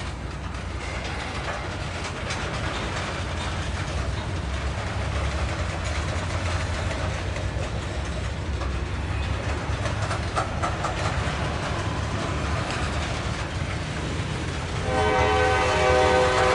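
CSX coal train's hopper cars rolling slowly past: a steady low rumble of steel wheels on rail with scattered clicks. Near the end a train horn starts sounding a steady, multi-note chord, and the sound gets louder.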